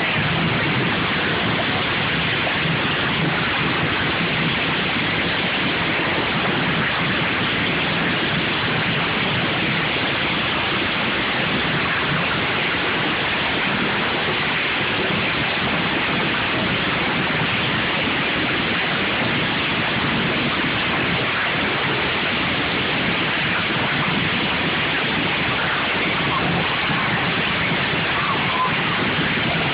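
Several racing lawn mower engines running at once, blended into a dense, steady wash of noise with no single engine standing out, heard through a phone microphone.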